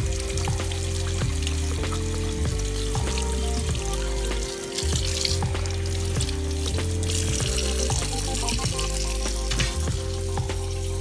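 Background music with held notes over a bass line that moves step by step. Under it, a kitchen tap runs into a stainless steel sink while a fish is rinsed under the stream.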